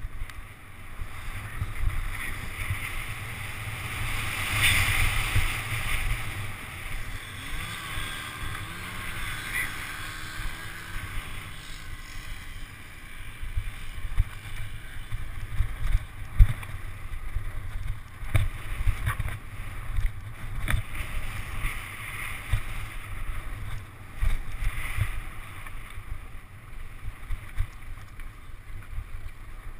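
Wind buffeting the microphone of an action camera on a fast downhill mountain-bike descent, with mountain-bike tyres running over the dirt and gravel track and scattered sharp knocks and rattles from the bike hitting bumps.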